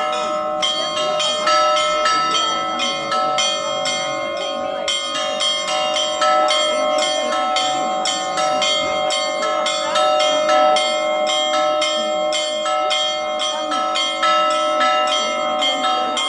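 Church bells ringing in a continuous peal: smaller bells struck rapidly, several strokes a second, over the steady, sustained ringing of lower bells.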